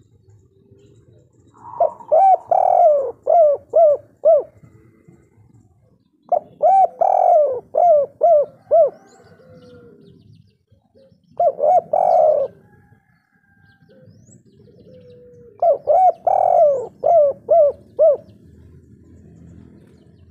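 Spotted dove cooing in its 'kuk 3' song: four phrases, each a quick run of looping coos, the third phrase shorter than the others, with pauses of a couple of seconds between them.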